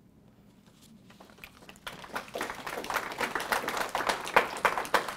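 Small audience applauding: a few scattered claps about a second in, swelling into steady applause from about two seconds in.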